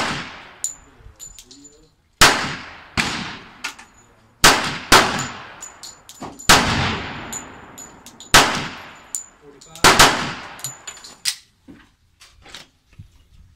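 Semi-automatic pistol fired about ten times at an uneven pace, some shots in quick pairs, each crack trailing off in a short echo. A few fainter cracks come near the start and end.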